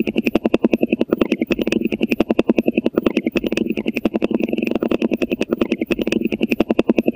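Shoebill clattering its bill: a rapid, steady, machine-gun-like run of sharp claps, about nine a second.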